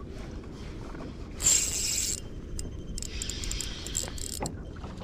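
Spinning reel being cranked to wind in line, with a run of quick mechanical clicks and a whirring hiss near the end, over a low steady rumble of wind. A loud short hiss about a second and a half in.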